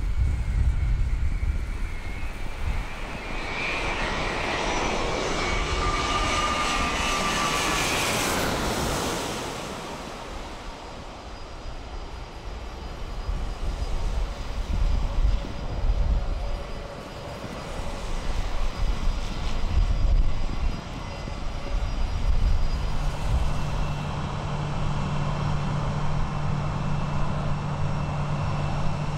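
Boeing 787-9 jet engines on landing approach: a rising whine that swells to its loudest as the airliner passes low overhead about eight seconds in, with pitch falling as it goes by. A lower rumble with gusty surges follows, then a steady low hum near the end.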